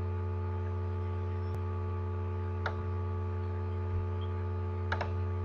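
A few computer mouse clicks over a steady low hum: one about a second and a half in, another near three seconds, and a quick double click near the end.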